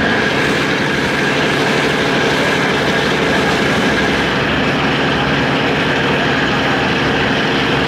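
Steady drone of a ferry's engine heard on board, with a constant high whine over it and a rush of wind and water noise.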